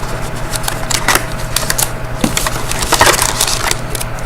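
Hockey card packs being taken out of a cardboard hobby box: a run of short crackling and scraping handling noises over a steady low hum.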